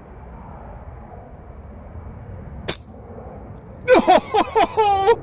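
A single shot from an FX Dreamline .22 pre-charged pneumatic air rifle, UK sub-12 ft-lb version: one short crack about two and a half seconds in, over steady wind noise. Near the end a man lets out several short excited cries.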